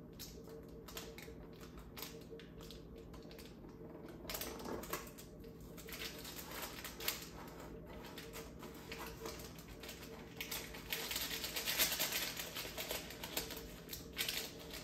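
Knife sawing through a thin baked sponge cake on parchment paper in a metal baking tray: a long run of quick scraping clicks. Louder parchment-paper crackling comes about three-quarters of the way through as the cake half is lifted off the paper.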